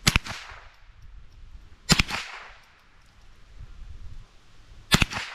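Three .22 rifle shots from a Cooey 64B semi-automatic rifle, each a sharp crack with a short echo trailing off. The first comes right at the start, the second about two seconds later and the third about three seconds after that.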